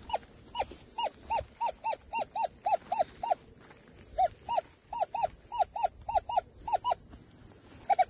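An animal calling a long series of short, repeated notes, about three a second, with a brief break about halfway through.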